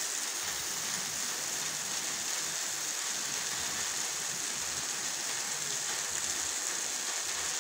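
Rain falling steadily in a thunderstorm, a constant even hiss, with water pouring down from a roof edge.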